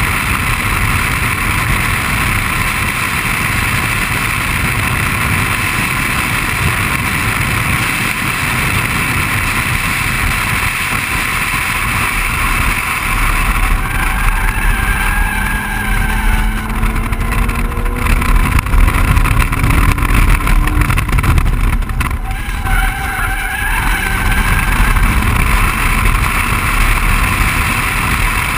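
BMW 135i's turbocharged straight-six pulling hard at track speed, heard inside the cabin over steady road and wind noise, its note climbing through the middle of the stretch. The tyres squeal briefly through a corner about halfway in and again a few seconds later.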